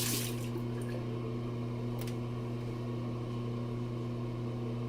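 Steady low electrical hum with an even buzz, like a bathroom's mains hum or exhaust fan. A brief hiss ends just at the start, and there is a single faint click about two seconds in.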